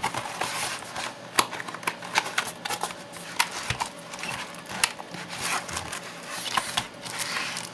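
Cardboard box and packaging being opened and handled: irregular clicks, taps and scraping rustles.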